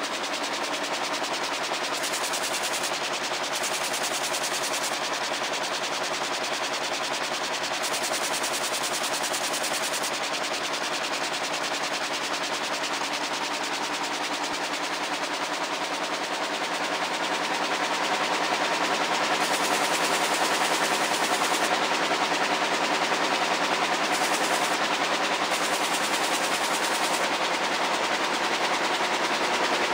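Air-jet loom running at speed while weaving denim: a fast, steady, even clatter over a hiss, a little louder in the second half.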